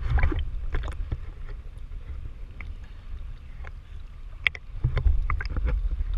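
Water noise on a scuba diver's camera: a steady low rumble with scattered clicks and crackles, the rumble growing louder about five seconds in.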